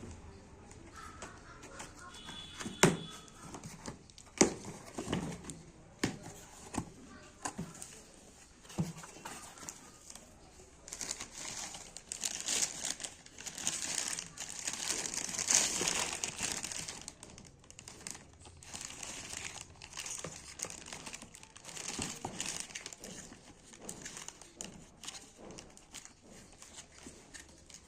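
Packaging being handled and opened: wrapping crinkling and tearing, with a few sharp knocks in the first few seconds and a longer, louder stretch of rustling in the middle.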